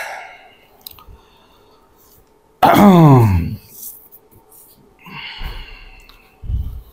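A man's voice gives one long wordless vocal sound, about a second long and falling steadily in pitch, about two and a half seconds in, between faint clicks of a book being handled. A short breathy sound follows later.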